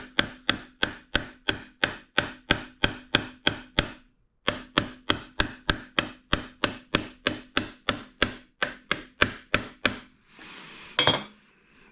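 Hammer striking a seal drift to drive a metal-lipped crankshaft seal into a scooter engine case: quick, even strikes about three a second with a faint metallic ring, a short pause about four seconds in. The strikes stop near ten seconds, followed by a short noisy sound.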